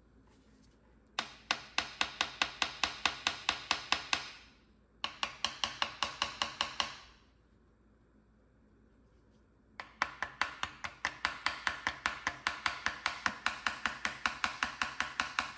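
A hammer tapping rapidly and lightly on the oil pump cover of a 2006 Porsche Cayman S engine, about five or six taps a second. The taps come in three runs with short pauses between them. The tapping breaks the cover loose from the case.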